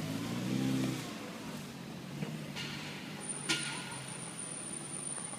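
A motor vehicle running, its low engine note rising and falling in the first second, with two short hisses in the middle.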